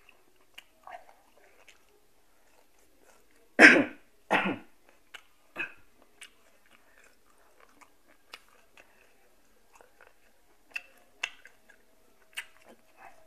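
A person chewing boiled apple snail meat, with small wet mouth clicks scattered throughout. Two short, loud bursts come about four seconds in, under a second apart.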